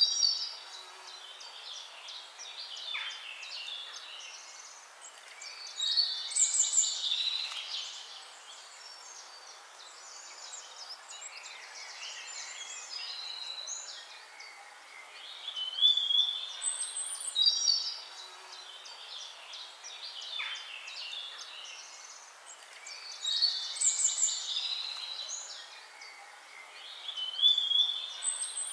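Several songbirds chirping and whistling in high, quick bursts that come every few seconds, over a faint steady hiss.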